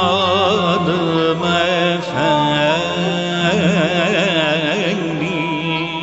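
Turkish classical music in makam Bestenigâr: a melodic line with wide vibrato and ornamented glides over a steady low note.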